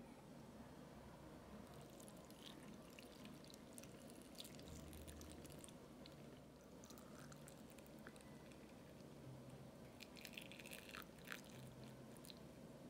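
Faint pouring of hot vinegar pickling brine from a glass measuring cup into a glass jar of sliced melon, with small splashes and light clicks, busiest about ten seconds in.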